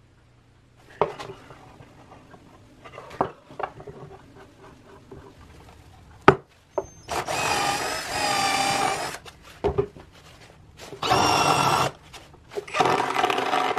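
Cordless drill running in three bursts of one to two seconds, screwing a plywood pulley onto a bandsaw wheel. Before that, a few sharp knocks and clicks of wood blocks and clamps being handled.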